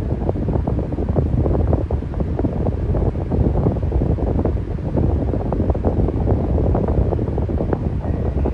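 Electric fan running steadily: a constant low rush of moving air, heaviest in the low end, with a fast irregular flutter as the airflow buffets the microphone.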